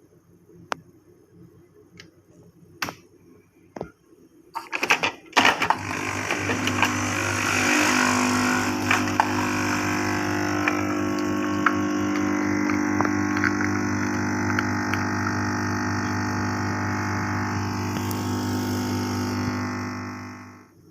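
Coffee machine dispensing a drink: a few clicks, then a steady motor hum with a hiss of liquid and small ticks for about fifteen seconds, cutting off near the end.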